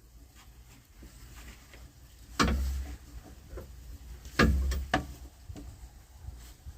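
Two sharp knocks about two seconds apart, with a few fainter clicks between and after them.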